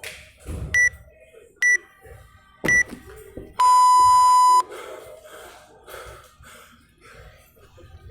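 Workout interval timer counting down: three short high beeps about a second apart, then one long, lower beep that marks the start of the next interval.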